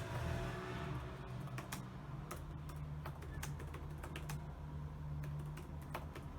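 Typing on a computer keyboard: irregular, quick keystroke clicks, with a steady low hum underneath.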